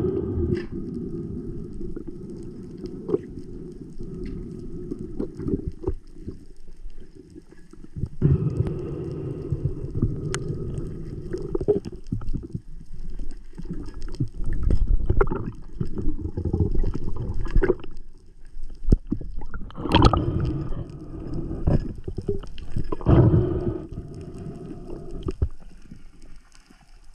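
Muffled underwater noise picked up by a diver's camera: uneven water rushing and rumbling, with scattered sharp clicks and knocks as a speared fish is brought in on the spear and handled, and several louder surges.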